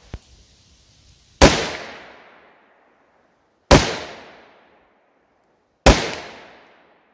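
Three single shots from a home-built .223 AR-15 rifle, fired deliberately about two seconds apart, each loud crack followed by an echo that fades over about a second. A light click comes shortly before the first shot.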